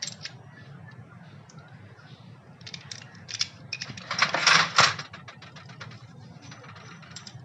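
Desi padlock and its key being handled: scattered metallic clicks and rattles, with a denser run of clicking about four to five seconds in as the key is worked in the lock.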